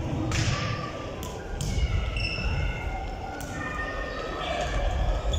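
A futsal ball being kicked and thudding a few times, each hit echoing in a large sports hall with a wooden floor, with players shouting during play.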